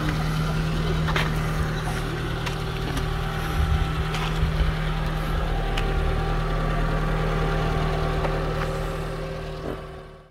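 Car engine idling steadily, with a few faint clicks over it; the sound fades out near the end.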